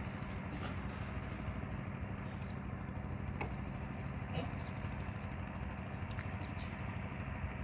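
A small engine running steadily at idle, with a few faint clicks over it.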